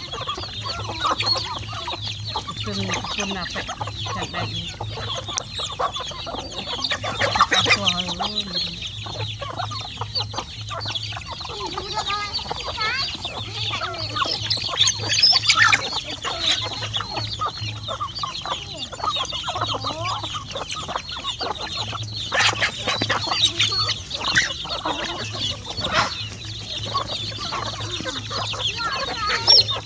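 A flock of chickens and half-grown chicks feeding, calling continuously with clucks and high peeps, over many short taps of beaks pecking at food on the ground.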